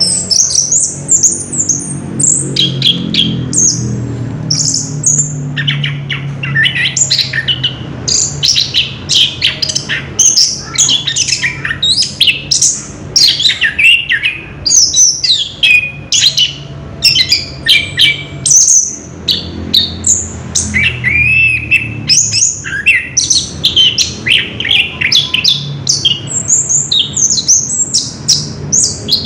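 Orange-headed thrush singing in a long unbroken roll: a rapid, continuous stream of high whistled and chattering phrases with hardly a pause.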